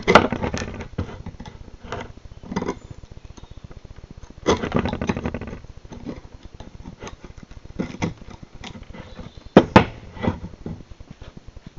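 Knife blade cutting into hard beech wood: a series of sharp knocks and chops, with a longer scraping cut about four and a half seconds in and a quick double strike near the end.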